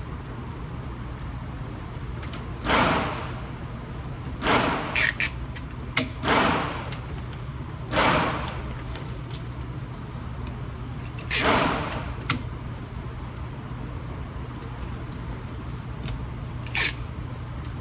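Strips of tape being pulled off the roll to fix a paper target, about five rasping pulls with a few small clicks, over the steady low hum of the range's ventilation.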